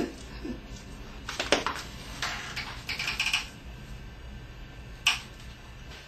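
Small hinged pet door in a homemade wooden frame, pushed through by a dog after the voice-controlled lock has released. There are a few clicks, a light metallic rattle from about two to three and a half seconds in, and one sharp knock about five seconds in.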